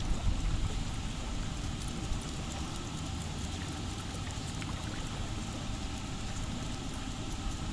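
Wind buffeting the microphone: a low, uneven rumble over a steady outdoor hiss.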